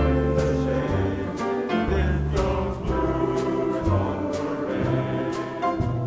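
A mixed choir singing a swing jazz arrangement backed by a jazz combo of piano, upright double bass and drum kit, with low bass notes under regular cymbal strokes.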